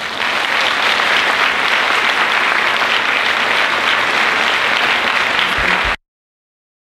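Audience applauding steadily, cut off suddenly near the end.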